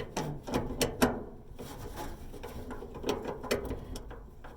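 Irregular clicks, knocks and rattles from hands working a Samsung dryer's drive belt and idler pulley inside the cabinet, metal parts knocking as the belt is handled.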